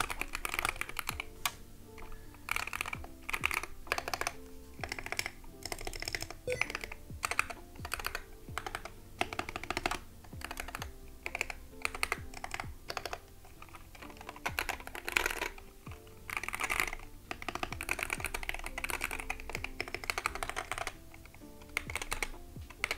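Typing on a Wooting 60HE keyboard with magnetic Hall-effect switches, mounted in an aluminium case: a continuous, uneven run of keystroke clacks, over faint background music.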